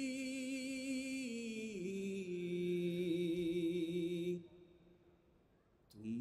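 A man's unaccompanied voice chanting an Urdu nazm, holding a long final note that steps down in pitch twice before it stops about four and a half seconds in. After a short pause a voice starts again at the very end.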